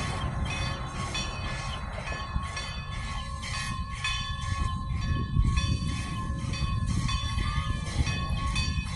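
Everett Railroad steam locomotive approaching slowly with its train: a low rumble with a regular beat about three times a second that gets clearer from about three seconds in.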